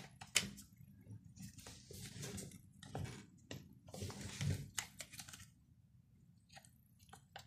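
Plastic parts of a partly reassembled Nikon D7000 camera body clicking and tapping as they are handled and fitted by gloved hands, with short stretches of glove and plastic rubbing. A sharp click about half a second in is the loudest; it goes nearly quiet for the last second and a half.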